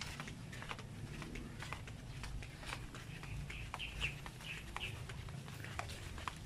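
Footsteps in flip-flops on grass and dry leaves, making irregular soft clicks and rustles. A bird chirps several times in quick succession around the middle.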